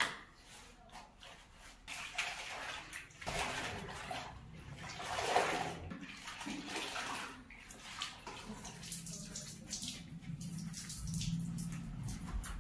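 Clothes being rinsed by hand in a bucket of water: irregular sloshing and splashing as wet garments are plunged and lifted, loudest about five seconds in.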